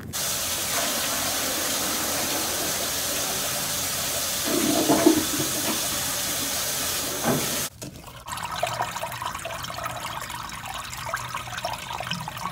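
Water rushing steadily through a toilet and its drain line. After a brief break about eight seconds in, a lower, more uneven flow follows: water running freely down the open drain pipe, a sign the backed-up line is clear.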